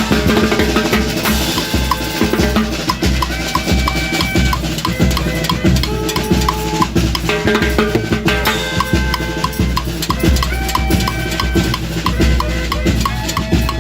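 Ecuadorian village brass band playing, with timbales hammering out a dense, steady rhythm over bass drum and held wind notes.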